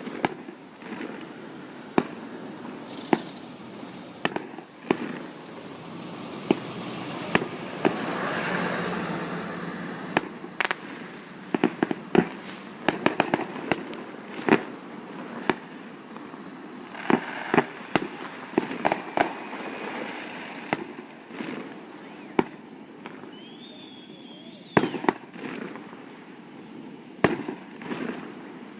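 Fireworks going off over a lake: a steady run of sharp bangs, some in quick clusters, with a longer noisy swell about eight seconds in.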